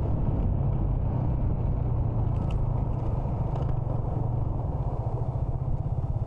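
Motorcycle engine running steadily while the bike is ridden along a road, heard as a constant low drone.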